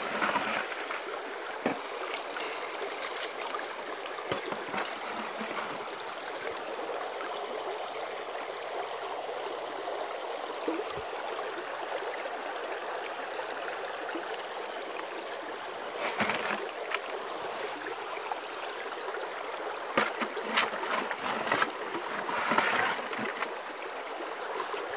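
Creek water rushing steadily through a wooden stream sluice box and over its riffles, with a few short knocks and splashes about two-thirds of the way in and again near the end.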